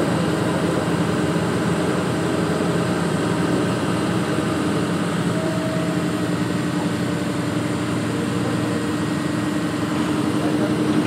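Heavy machine engine running steadily at low revs, a continuous even hum, as a telescopic crane holds a long beam in the air.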